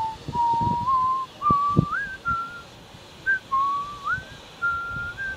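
A person whistling a slow tune: held notes that step up in pitch with a few quick upward slides. Low buffeting on the microphone comes and goes underneath.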